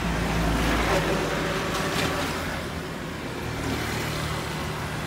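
Road traffic: a motor vehicle's engine rumble, strongest in the first second, over a steady hum of traffic.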